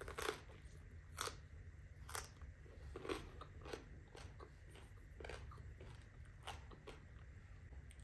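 Close-up crunching and chewing of raw cucumber: a bite, then crisp crunches about once a second as it is chewed, loudest in the first few seconds.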